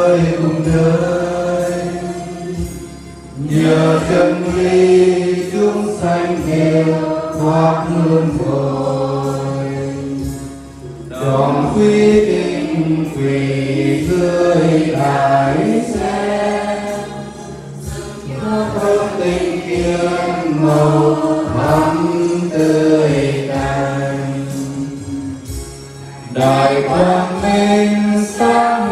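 Vietnamese Buddhist liturgy chanted melodically by voices in unison, with long held notes in phrases of about seven seconds and short breath pauses between them.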